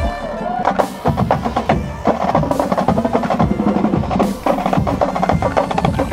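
Marching band drumline playing a fast street cadence: rapid snare drum strokes and rolls over bass drum hits, with sharp stick clicks.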